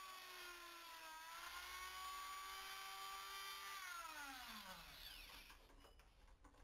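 Small electric rotary tool with a cutting disc running at high speed against a corroded metal cylinder, its whine dipping briefly in pitch about a second in. About four seconds in it is switched off and spins down with a steadily falling whine.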